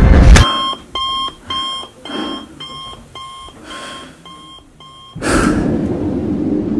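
Digital alarm clock beeping, a steady run of short electronic beeps at about two a second that cuts off suddenly, giving way to a low rumble.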